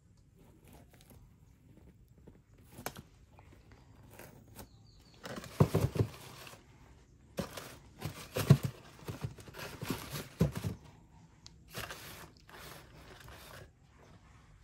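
Tissue paper rustling and crinkling in several bursts as a pair of sneakers is handled and set into a cardboard shoebox, with a few soft thumps.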